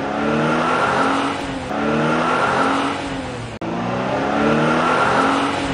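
Recorded car engine revving sound, climbing in pitch in three repeated runs, with an abrupt break about three and a half seconds in.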